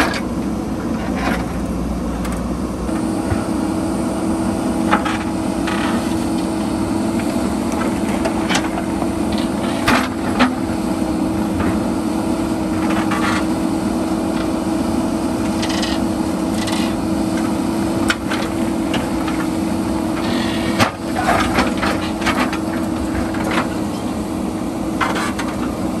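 JCB backhoe loader's diesel engine running steadily under load, with scattered sharp knocks and scraping as the bucket digs into and breaks rock.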